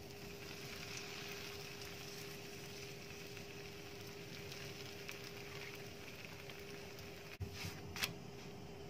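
Flour tortilla cooking on a cast-iron griddle over a gas burner: a faint steady hiss. Near the end come two short sharp sounds as the tortilla is lifted and turned.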